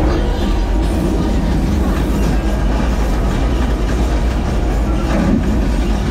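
Loud, steady rumbling and clatter inside an interactive screen-based dark ride, heavy in the low end.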